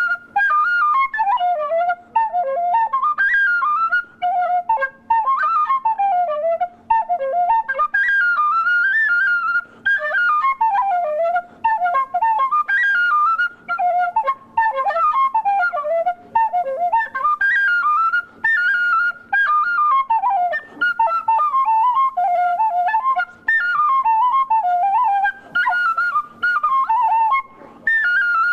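Tin whistle played solo: a quick, ornamented traditional Irish melody, broken by short breaths every couple of seconds.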